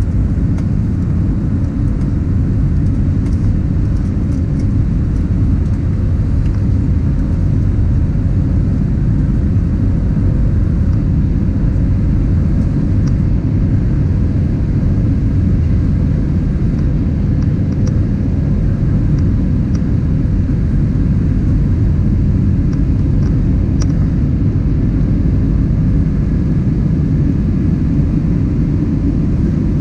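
Steady low rumble of engine and airflow noise inside the cabin of an Airbus A320neo climbing after takeoff, heard from a window seat over the wing, with a few faint rattling ticks.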